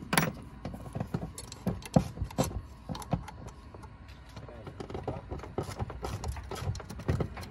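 Ratchet and socket working the bolts of an EGR valve housing: irregular metallic clicks and knocks of the tool, with louder clanks just after the start and about two seconds in.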